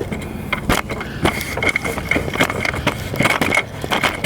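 Tools and engine-bay parts being handled during a thermostat-housing removal: a run of irregular sharp clicks, knocks and scrapes, with a repeated high chirp in the background.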